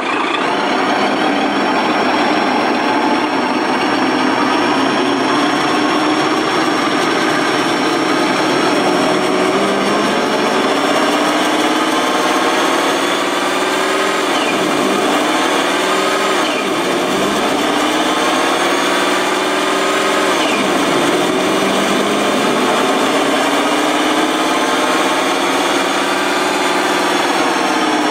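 Simulated diesel truck engine from a Sense Innovations ESS Dual sound module, played through its speakers. It runs steadily, then is revved up and down several times in the middle and once more near the end.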